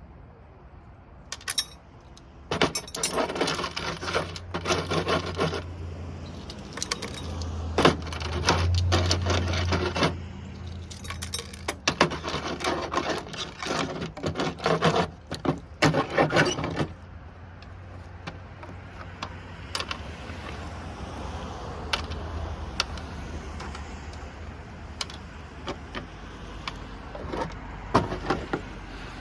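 Small metal parts (screws and small brass washers from light sockets) clinking and rattling as they are handled and sorted, in dense runs of rapid clicks for the first half and only scattered clicks after that. A low steady hum sits underneath for much of it.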